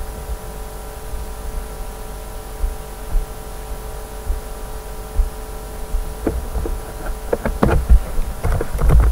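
Steady electrical hum made of several even tones, with low knocks throughout and a cluster of sharp clicks and knocks in the last three seconds.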